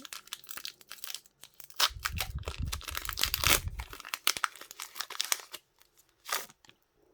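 Pokémon card booster pack packaging being torn open by hand: crinkling and tearing of the foil wrapper, with a low rumble of handling about two to four seconds in. A single short click near the end.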